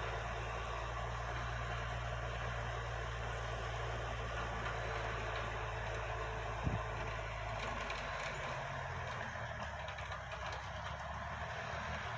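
Bucyrus dragline's engine running steadily as the machine works, with a single low thump a little past halfway and the engine note shifting about eight seconds in.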